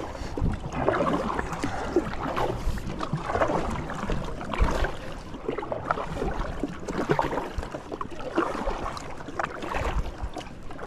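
Kayak paddle strokes, the blades dipping and splashing into lake water on alternate sides as the kayak is paddled along, with water moving along the hull.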